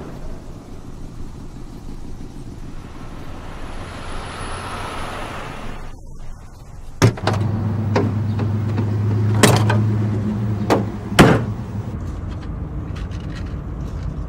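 An old car running, heard from inside the cabin. After a cut, a steady low hum is joined by several sharp thuds of the car's trunk lid and doors being shut, the loudest near the end.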